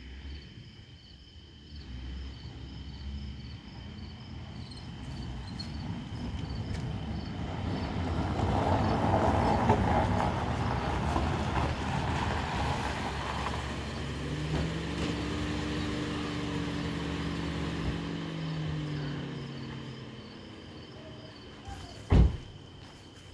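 A Toyota RAV4 driving slowly up a gravel driveway, its engine and tyres on the gravel growing louder, then easing off as it pulls up and stops. A car door shuts with a single loud thump near the end, over a steady high insect chirring.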